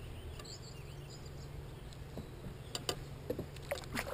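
Outdoor ambience: a steady low rumble with faint high chirps about half a second to a second in, and a few sharp clicks near the end.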